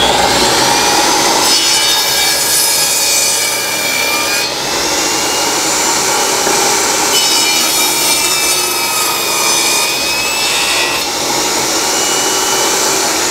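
RIDGID R45171 10-inch compact table saw running at full speed while its blade cuts through softwood boards. Several short cuts follow one another, and the blade's whine shifts as each piece goes through.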